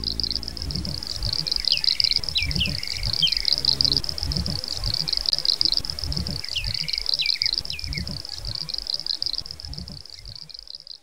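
Birds chirping in two short bouts of quick rising-and-falling calls over a steady high buzzing, with low irregular rumbling underneath; it all fades out near the end.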